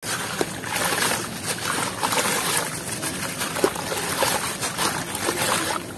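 A wet, gritty sand block crumbling in the hands into a basin of water: continuous crunching and grinding, with grains and chunks falling and splashing into the water.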